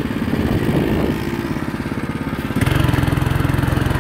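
Small go-kart engine running as the kart is driven, a steady pulsing beat; about two and a half seconds in it gets louder.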